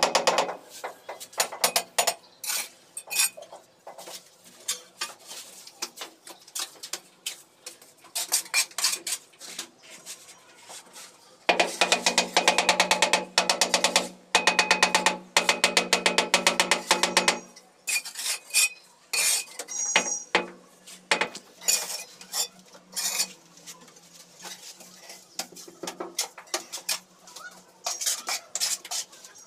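Steel trowel tapping and scraping against ceramic wall tiles and mortar: a long series of sharp clicks and knocks, with a dense run of rapid ticks in the middle.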